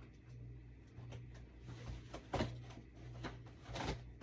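Plastic DVD cases being handled and shifted while someone searches through a collection: a few short knocks and rustles, the loudest about two and a half seconds in and just before the end, over a steady low electrical hum.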